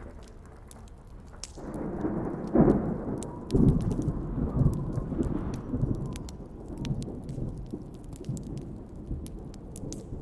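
A thunderclap builds about a second and a half in, with two loud cracks about a second apart, then rumbles on and slowly fades. Under it runs the steady crackling and popping of a campfire.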